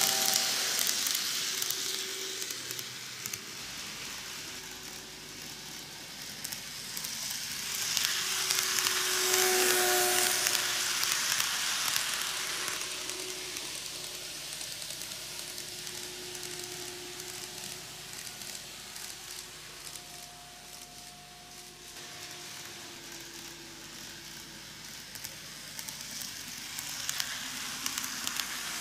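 KATO N-gauge JR Shikoku N2000 series model train running on curved track: a steady hissing rattle of its wheels on the rails. It swells as the train comes near, again about a third of the way in and near the end, and fades as it moves away.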